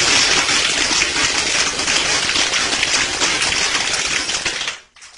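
Homemade soda-bottle airsoft machine gun firing on air from an air compressor line: a loud, continuous rush of air with a dense rattle of BBs striking a wooden block target, cutting off suddenly near the end.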